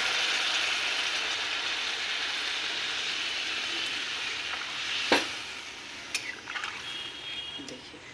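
Water poured into a kadhai of hot oily masala, sizzling with a steady hiss that fades away over about five seconds. A sharp clink of metal on the pan about five seconds in, then lighter scraping and tapping as a ladle stirs the curry.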